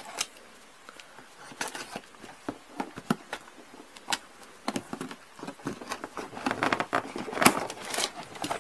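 Cardboard toy box being torn open by hand: fingers scratching and picking at the sealed flaps, with small crackles and tears of cardboard and tape that come thicker near the end as the lid comes free.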